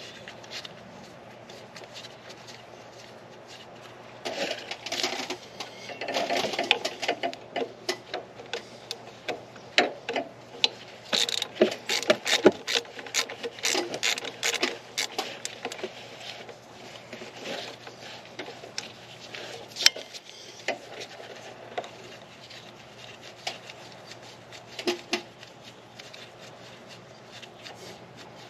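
Hand ratchet clicking in irregular bursts, with metal tool clinks, mostly in the first half and a few near the end, as the replacement power steering pump's mounting bolts are run in and tightened.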